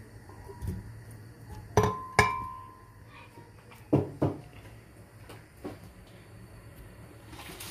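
Kitchenware clinking against glass: a few sharp knocks, the two loudest about two seconds in, one of them ringing briefly, then two more about four seconds in.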